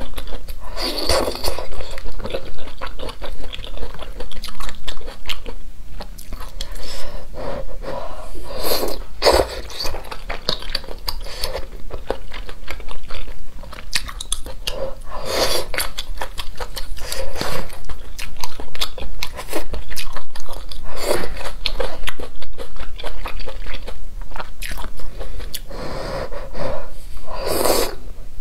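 Close-miked eating of spicy hot pot: wet chewing and mouth smacking, with a louder slurping burst about every five to six seconds as food is taken in.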